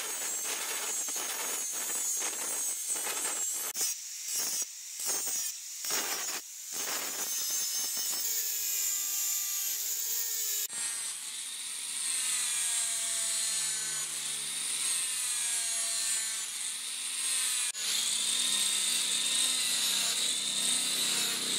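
Angle grinder with an abrasive disc grinding the steel of an old lawnmower blade, with the contact broken into short strokes from about four to seven seconds in. From about eight seconds in, an angle grinder with a sanding pad sands the blade surface, its motor whine wavering in pitch with the load.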